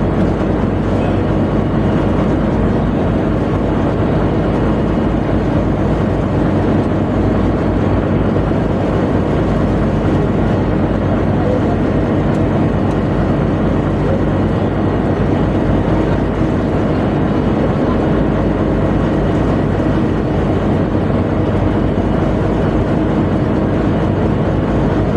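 Tugboat machinery running steadily, a loud, even low drone that does not change.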